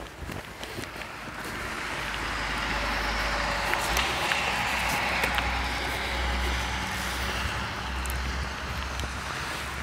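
A road vehicle passing by: tyre and engine noise swells over the first couple of seconds and stays high, over a steady low rumble.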